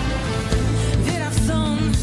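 Live pop-rock music from a band, with a steady bass and beat and a woman's voice singing short, gliding phrases over it.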